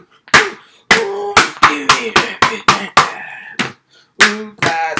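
A rapid, irregular run of sharp smacks and knocks, about a dozen in five seconds, from handheld objects being swung and struck, with short vocal cries about a second in and again near the end.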